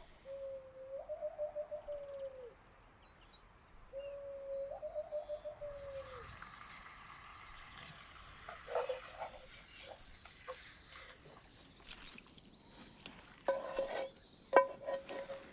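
Outdoor birdsong: two long wavering calls of about two seconds each, then a run of quick high chirps, with a few light clicks among them. Near the end a steady tone comes in.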